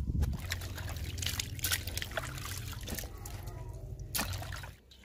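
Cut potato sticks being washed by hand in a steel bowl of water: water sloshing and trickling with small clicks. It stops shortly before the end.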